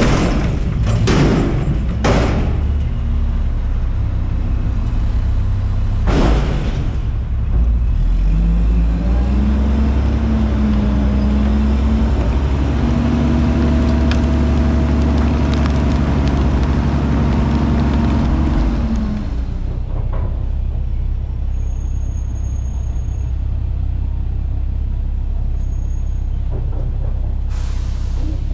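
Front-load garbage truck dumping a container into its hopper: trash and the container bang in a few times at the start and once about six seconds in. Then the truck's diesel engine revs up and holds high for about ten seconds while the hydraulics run, drops back to a steady idle, and a brief hiss comes near the end.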